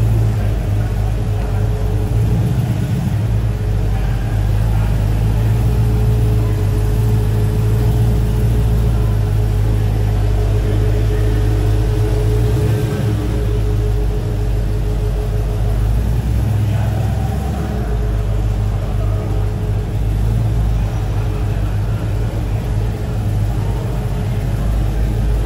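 A vehicle engine running steadily with a low rumble, with a faint steady higher tone through the first half.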